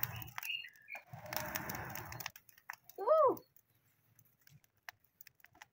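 Breath blown hard into a charcoal jiko to fan it alight, in two long breathy rushes, the second ending about two seconds in. About three seconds in comes one short animal call that rises and falls in pitch, the loudest sound here; after it only faint small ticks.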